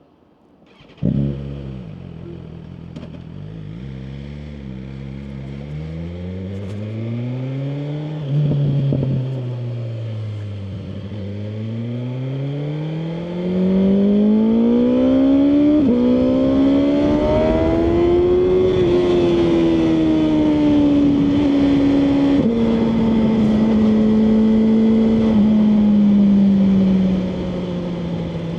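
BMW M1000R Competition's inline-four engine firing up about a second in, then running with the revs rising and falling. About 13 seconds in it gets louder and the pitch climbs, dropping in sudden steps at each gear change as the bike pulls away and rides on.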